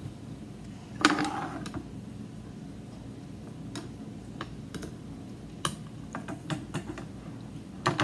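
Light, irregular clicks and small rustles of fingers handling cotton yarn and a paper clip while tying a knot, with one louder bump about a second in.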